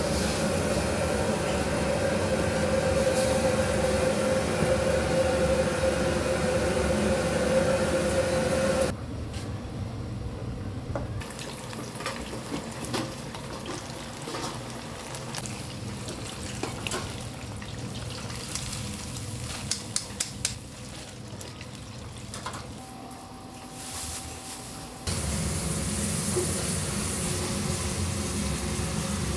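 Commercial Chinese-kitchen cooking sounds: a loud steady roar with a held hum, then a quieter stretch of oil bubbling in a deep fryer with a few sharp crackles, then the steady roar again as sauce is ladled from a wok.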